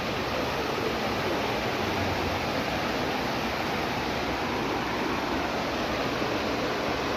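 Waterfall with a heavy flow of water, a steady unbroken rush of falling and splashing water.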